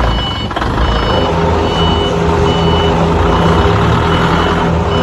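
Forklift warning beeper sounding a steady high beep about every 0.7 seconds over the forklift's engine running, as it drives with a load of concrete blocks.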